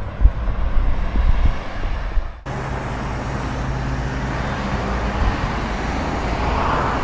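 Road traffic noise with wind gusting on the microphone. About two and a half seconds in, the sound changes abruptly to a steadier traffic noise, and a passing vehicle grows louder near the end.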